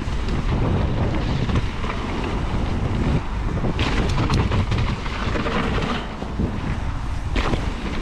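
Wind buffeting the microphone as a mountain bike rolls down a dirt trail, with tyre noise and small rattles from the bike. A louder rushing hiss with a few sharp clicks comes between about four and six seconds in.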